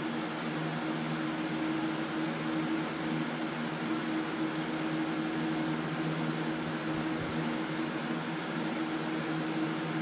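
A 2007 Lakewood 20-inch box fan, model 101CC with brace-style blades, running smoothly: a steady rush of air over a low motor hum.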